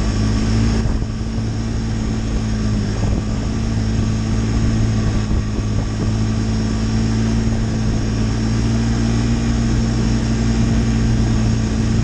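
Snowmobile engine running steadily while riding along a snowy trail, a constant drone heard from the rider's seat.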